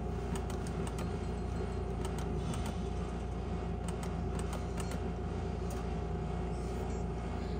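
Steady hum with a held mid-pitched tone from the skill-game cabinet and its surroundings, with scattered light clicks of the game's buttons being pressed as the reels are spun.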